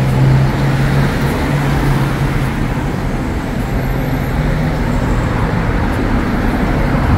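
Road traffic on a multi-lane city street: cars driving past with a steady wash of engine and tyre noise, and a low engine drone from a nearby vehicle that comes and goes.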